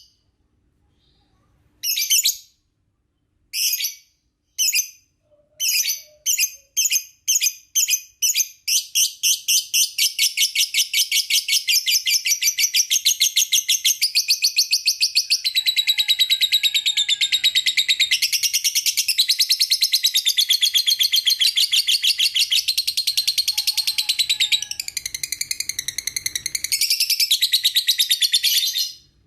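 Lovebird calling: separate shrill chirps that come faster and faster, then run together into a long, rapid, continuous chattering trill that stops abruptly near the end.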